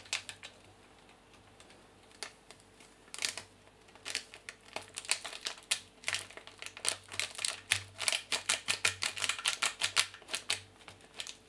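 Foil dry-yeast sachet crinkling and being tapped and flicked over the neck of a glass carboy to shake out the last of the yeast: a fast, irregular run of crisp clicks and crackles, scattered at first and much denser from about four seconds in.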